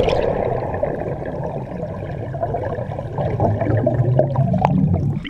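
Muffled churning and sloshing of swimming-pool water, a dull, steady wash.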